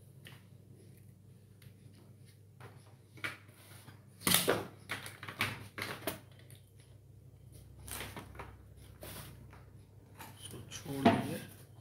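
Scattered clicks, taps and rustles of hands working with wire and tools over an opened LED TV's mainboard on a workbench. There is a louder knock about four seconds in and another near the end, over a faint low hum.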